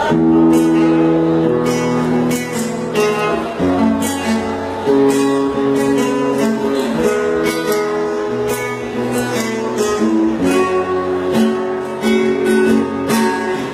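Live band playing an instrumental passage led by strummed acoustic guitar, with chords changing about every second and a steady beat.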